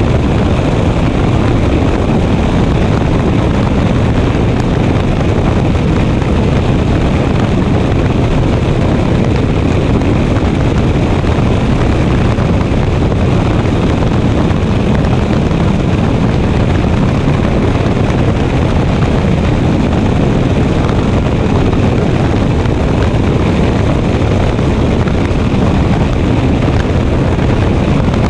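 Three Mercury outboards running at full throttle on a stepped center-console boat doing about 80 mph, a steady loud rush of engine, water and wind. Heavy wind noise on the microphone is mixed in with it.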